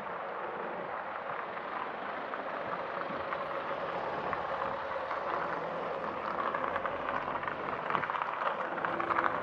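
Cars driving past at close range on a town street: a steady hiss of tyres on asphalt with a faint engine hum, growing slightly louder and more crackly toward the end.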